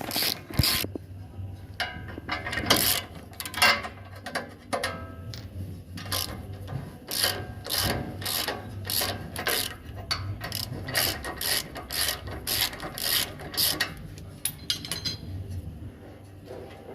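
Hand socket ratchet clicking in repeated strokes, about two a second, as a 19 mm socket undoes the lower bolt of a front shock absorber.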